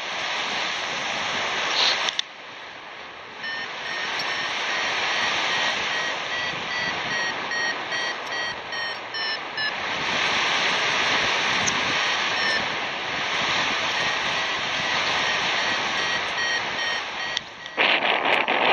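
Airflow rushing over the microphone in paraglider flight, with a variometer beeping in short repeated tones whose pitch creeps up and then drops, signalling climb. The beeping runs for several seconds, stops, and comes back later; near the end the wind turns rough and crackling.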